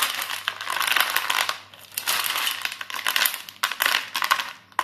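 Dried jaggery-coated makhana (fox nuts) clattering on a steel plate as hands stir and toss them, in several spells of quick, dense clicking. The hard, crisp rattle is the sign that the jaggery coating has set and the pieces no longer stick together.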